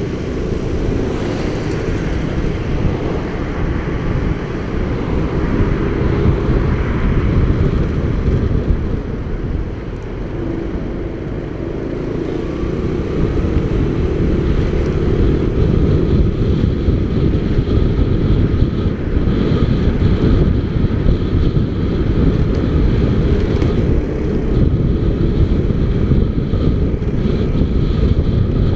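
Motorcycle engine running under way, mixed with heavy low wind rumble on the bike-mounted camera's microphone; it eases off for a few seconds near the middle and then grows louder again.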